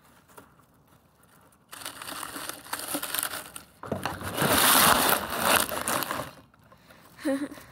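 Dry straw rustling and crackling as a hand moves toy figures through it. It starts about two seconds in and is loudest just past the middle.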